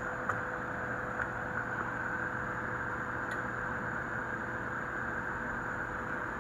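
A small electric blower running steadily: an even rushing hiss with a steady hum tone, and a few faint ticks.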